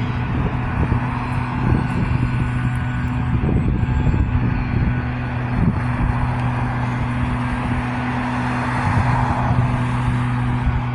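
Steady outdoor road-traffic noise with a constant low hum underneath.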